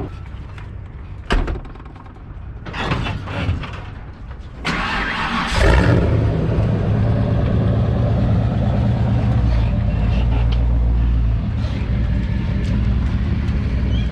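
A clunk and some scuffling, then about five seconds in the Ford 460 big-block V8 of a 1995 F350 cranks and fires, settling into a steady, low, even idle.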